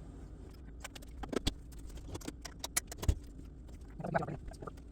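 A utensil clinking and tapping against a mixing bowl while a sauce is stirred, as a quick irregular run of light clicks over the first few seconds.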